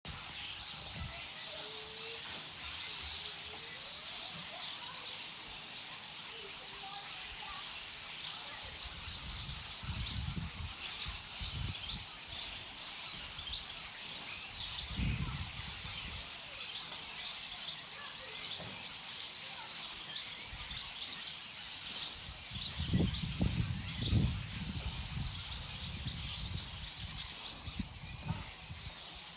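Many small birds chirping and twittering at once, a dense chorus of quick high calls, with a few low rumbles mixed in now and then.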